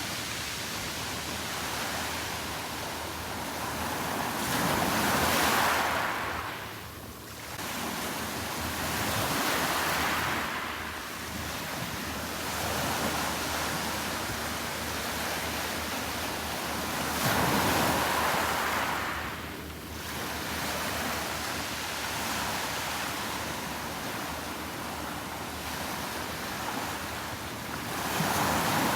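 Sea waves washing onto the beach as a steady hiss, swelling louder three times, about ten seconds apart, as waves break.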